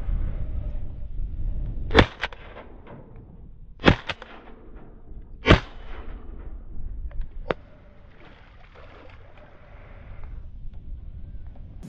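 Three shots from a gas-operated semi-automatic 12-gauge Beretta A300 Outlander shotgun, fired in quick succession about two seconds apart, followed by a fainter sharp crack. Low wind rumble on the microphone underneath.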